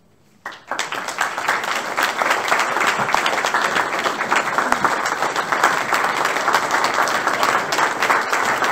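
Audience applause, starting suddenly about half a second in and going on steadily: many people clapping in a large hall.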